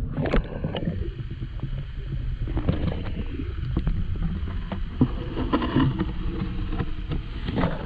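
Muffled low rumble of moving river water heard by a GoPro submerged in its waterproof housing, with scattered small knocks and clicks against the housing.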